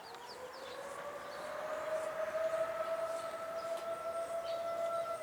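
Outdoor tornado warning siren sounding for a test, winding up in pitch over the first couple of seconds and then settling into a steady wail that keeps getting louder.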